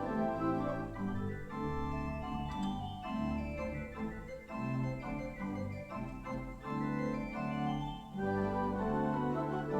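Organ playing sustained chords that change every second or so. A lighter, thinner passage in the middle gives way to the full sound again about eight seconds in.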